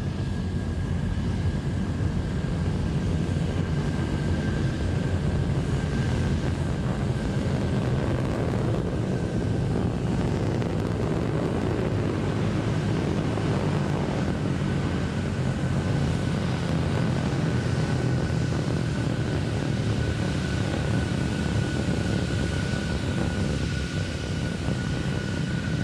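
Terran 1 rocket's first-stage engine cluster during ascent: a steady low rumble, with a faint steady high tone over it.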